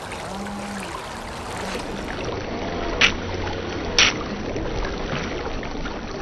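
Pro Boat SprintJet's brushed-motor jet drive running with its impeller blades broken by a pebble sucked up the intake, over the rush of a shallow stream. Two sharp clicks stand out about a second apart, near the middle.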